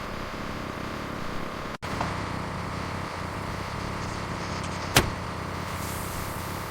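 Vehicle engine running steadily, cutting out for an instant just under two seconds in, with one sharp click about five seconds in.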